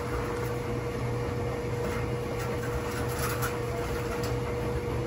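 Coin-operated front-loading washing machine running a rinse cycle: a steady machine hum with a constant mid-pitched tone over a low rumble.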